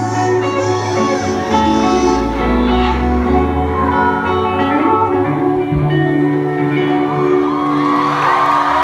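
Alternative rock band playing live with singing, held notes over a moving bass line, echoing in a large hall. Crowd whoops and cheers rise over the music near the end.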